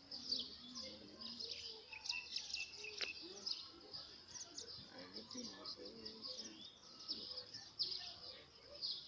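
Small birds chirping, with many quick high calls overlapping, under faint low voices.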